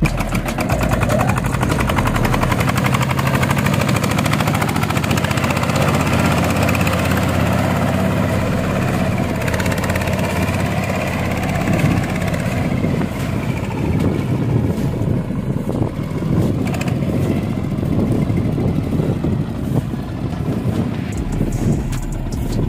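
Boat tractor's Chinese diesel engine running steadily with a fast, even firing beat, becoming rougher in the second half.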